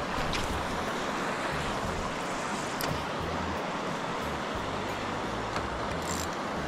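Steady rush of river water, with wind rumbling on the microphone and a few faint clicks.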